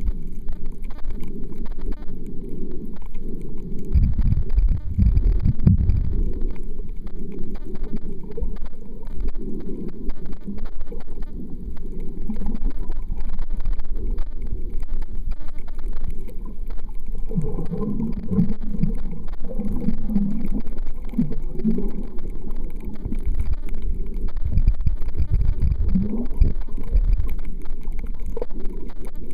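Muffled underwater rumble and water movement picked up by a camera below the surface, in uneven low surges that are strongest a few seconds in and again past the middle.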